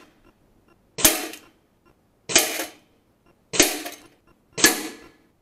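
Four shots from a Stoeger XM1 5.5 mm PCP air rifle, roughly every 1.2 seconds, each a sharp crack with a short ringing decay as the pellet strikes the metal lids in the tin-can target.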